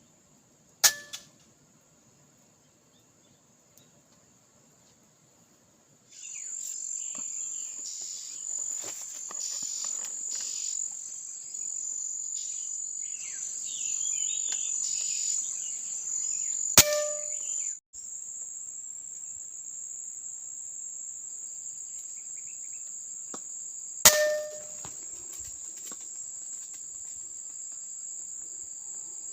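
Three shots from a PX120 airgun, each a sharp crack with a brief metallic ring, about a second in, near seventeen seconds and near twenty-four seconds. From about six seconds in, insects buzz steadily at a high pitch behind them.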